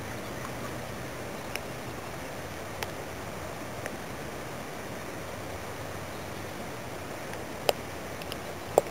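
Steady rush of flowing creek water, with a few faint clicks and two sharper clicks near the end.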